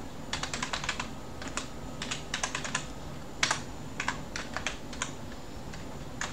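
Typing on a computer keyboard: short runs of keystrokes with brief pauses between them, one keystroke louder than the rest about halfway through.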